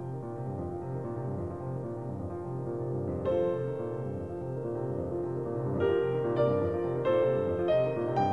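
Soft background piano music: slow, sustained notes, with a new chord coming in about three seconds in and several more notes struck near the end.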